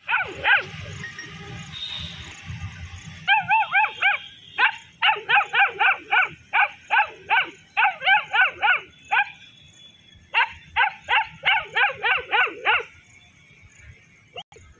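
Long-coat German Shepherd puppy barking in high-pitched yaps. The yaps come in quick runs of several a second, with short breaks between runs.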